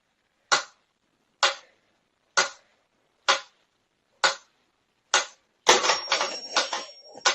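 Sharp clicks or taps at an even pace, about one a second, then a quick clatter of several clicks with a faint high whine near the end.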